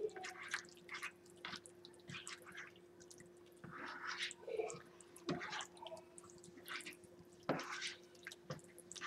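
A large spoon stirring sloppy joe mixture (ground meat in ketchup sauce with green pepper) in a skillet: faint, irregular wet squishing, with a few sharp clicks of the spoon against the pan.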